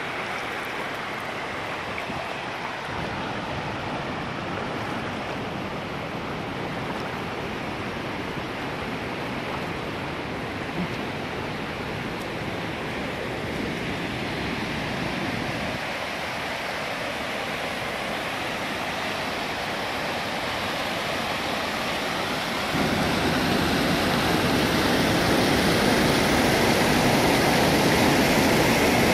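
Muddy floodwater rushing steadily over and along a concrete dam spillway. About three-quarters of the way through it becomes louder and fuller, the splashing of water pouring over the spillway's edge in a foaming fall.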